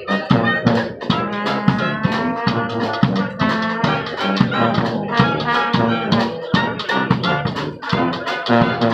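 Small street brass band playing, with trombones and other brass horns over a bass drum and snare drum that keep a steady beat.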